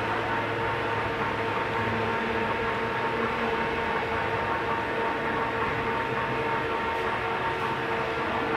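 Steady mechanical running noise of machinery, an even hum with a steady whine held at one pitch.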